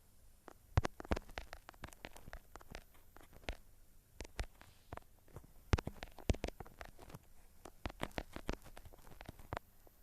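Irregular series of short clicks and knocks, several a second at times, with a lull about four seconds in.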